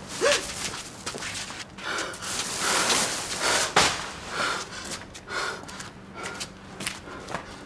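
A man's heavy breathing, with rustling of a plastic sheet over a metal dumpster and one sharp knock a little under four seconds in.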